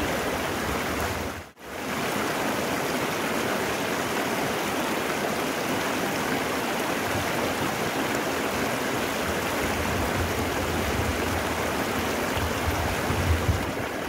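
Shallow, stony river rushing steadily over rocks in small rapids. The sound cuts out for an instant about a second and a half in.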